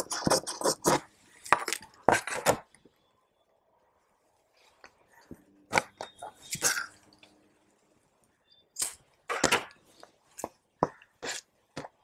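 Large tailor's shears snipping through blouse fabric in quick successive strokes for the first couple of seconds, then stopping. Later come fabric handling and a few sharp knocks as the shears and cut pieces are moved on the wooden table.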